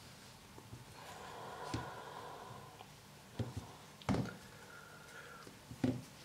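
Gloved hands handling and setting down metal coins on a cloth-covered surface: faint rustling and a handful of short, soft knocks, the loudest about two-thirds of the way through.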